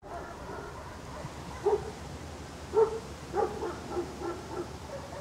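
A dog barking and yipping in a run of short barks, the first about a second and a half in and the rest coming quickly through the middle, over a steady low hum.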